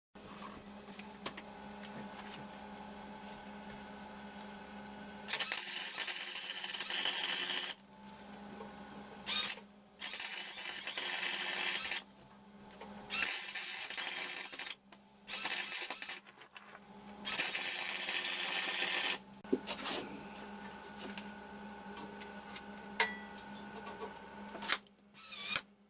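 Electric arc welding in several runs of one to three seconds each, with pauses between, over a steady electrical hum.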